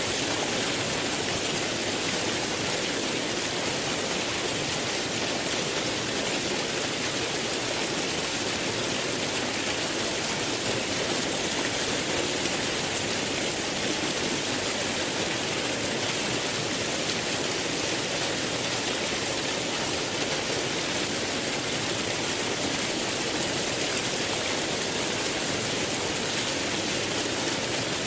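Flowing water rushing steadily, with no change in level and no other sounds standing out.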